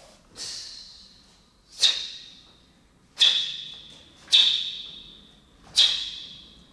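Five sharp snaps about a second or so apart from the fabric of a Taekwon-Do uniform (dobok) cracking with each fast strike or block of the pattern. Each snap trails off in the hall's echo.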